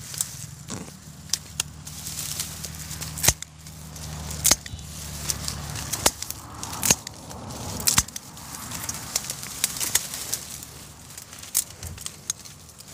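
Dry reed stems crackling and snapping with irregular sharp snaps as a hand pushes through them and cuts them with scissors, under a low hum that fades out about five seconds in.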